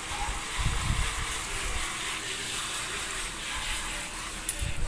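Steady hiss of water running from a garden-hose spray nozzle, with a few low bumps from handling.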